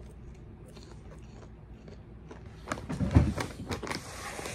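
Plastic snack bag crinkling and rustling as it is handled close to the microphone. There is a burst of crackles and a low thump a bit past halfway, and only faint clicks before that.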